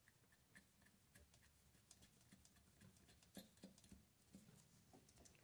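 Near silence broken by faint, scattered small metal clicks and taps: lock washers and nuts being fitted by hand onto an engine starter's mounting studs. The loudest click comes a little over three seconds in.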